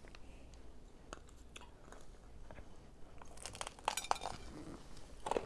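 Crunchy bite into fried chicken: a dense crackle of the crisp coating about three and a half seconds in, after scattered small clicks of chewing.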